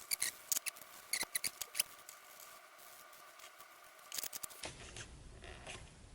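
Small hard objects being handled on a workbench: scattered sharp clicks and scrapes, a cluster in the first two seconds and a few more around four seconds in, then an abrupt cut to faint room tone.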